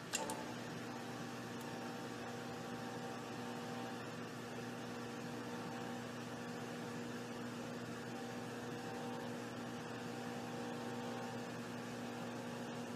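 Vibrating microtome (vibratome) running, its razor blade oscillating at high speed over the tissue bath: a steady electric hum with several fixed tones, after a click at the start.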